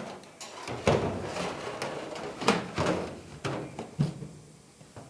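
Irregular knocks and clatter of objects being handled, with a few sharp knocks louder than the rest.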